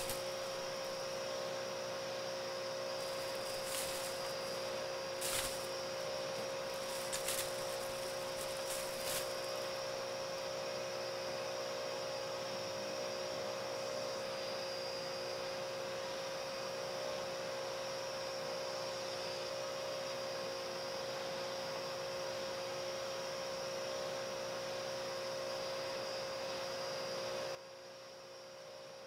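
A steady, mid-pitched electrical hum over a hiss, with a few brief soft noises on top of it in the first ten seconds. The hum drops much quieter near the end.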